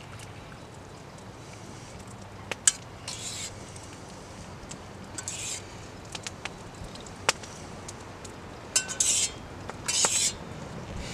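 Metal fork clinking and scraping against the inside of a metal camping mug while boiled nettles are fished out. There are a few sharp clinks, the loudest about two and a half seconds in, and four short scrapes.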